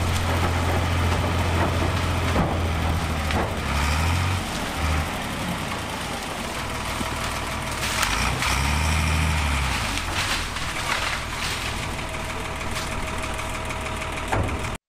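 Heavy diesel construction machine's engine running under load, its engine speed swelling up and back down about eight seconds in, with scattered knocks and clatters; the sound cuts off suddenly near the end.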